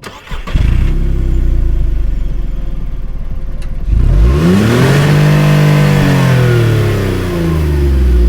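Seat Ibiza III's 1.2 12V three-cylinder petrol engine running steadily, then revved once: the pitch climbs for about a second and a half, holds, and falls back, beginning to rise again near the end.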